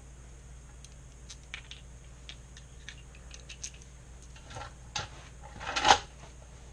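Light, scattered metallic clicks of tools and bolt hardware being handled during motorcycle motor mount bolt work, then a louder clatter lasting about half a second near the end.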